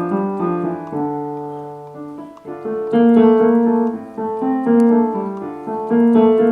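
Piano playing a choir part-learning track, moving through chords with one line of the harmony brought out. About two seconds in, a held chord fades away, and then the playing resumes.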